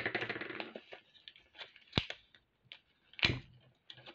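Clear plastic bag of glass seed beads crinkling as it is handled, then two sharp knocks, about two seconds in and again about a second later, among faint ticks.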